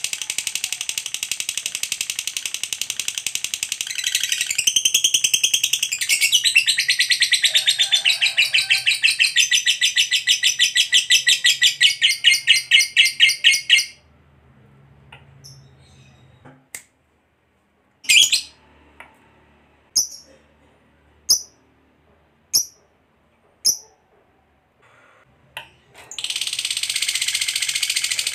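Lovebird giving its long 'ngekek' call: a fast, unbroken chattering trill of high notes that grows more pulsed and cuts off suddenly about halfway through. It is followed by about five single sharp chirps a second or so apart, then the trill starts again near the end.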